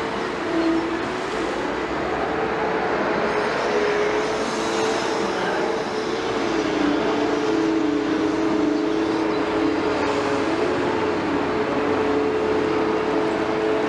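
Liebherr 946 excavator running, a steady machine noise with a humming whine. The lower note of the whine dips a little and gets louder about six and a half seconds in.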